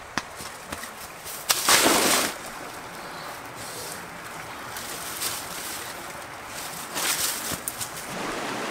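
Dry leaves and grass rustling and crackling, with a loud burst of crunching about two seconds in and a few sharp snaps near the end, over a steady rushing background.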